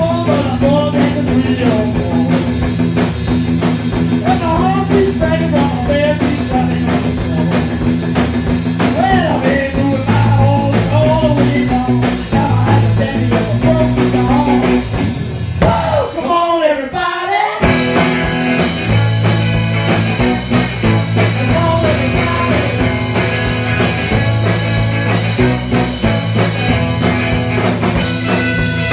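Rock band playing live in a room, with electric guitars and drum kit, loud and driving, a rockabilly-style number. About two-thirds through, the bass and drums drop out for a moment while a guitar slides down in pitch, then the full band crashes back in.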